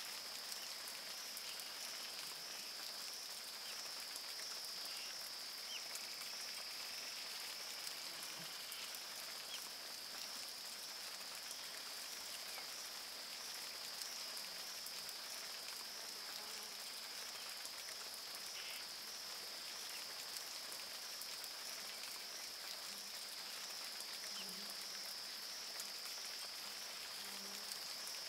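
Steady rain falling: an even hiss with scattered faint drop ticks, over a constant high-pitched whine.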